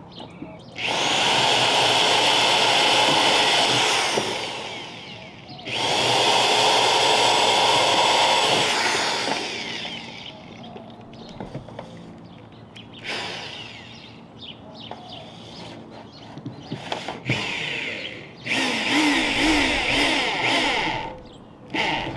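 Power drill running in three long bursts of a few seconds each, with a few short spurts between, as wooden cleats are screwed down through the metal shed roof.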